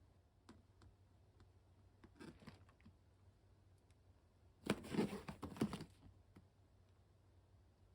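Packaging being handled: a few light clicks, a short rustle about two seconds in, then a louder crinkling burst lasting about a second around the middle.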